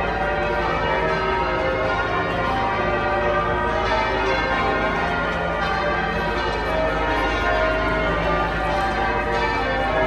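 The ring of twelve bells in St Paul's Cathedral's north-west tower being change-rung: a continuous run of overlapping bell strokes, many pitches sounding in rapid succession.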